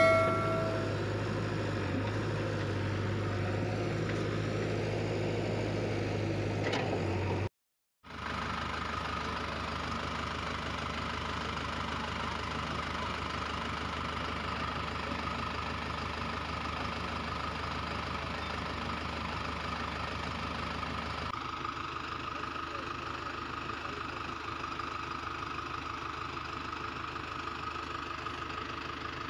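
Steady engine idling, a low hum with a held higher tone. A short ringing chime sounds at the very start, and the engine sound cuts out for a moment about seven and a half seconds in.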